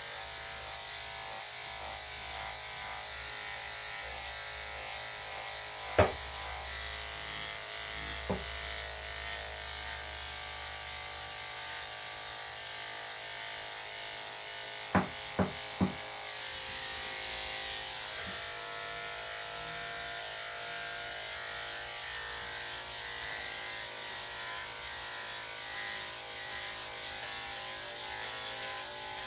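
Electric dog-grooming clippers running steadily with a constant motor buzz as they shave through a dog's coat. A sharp click about six seconds in, a fainter one soon after, and three quick clicks around the middle.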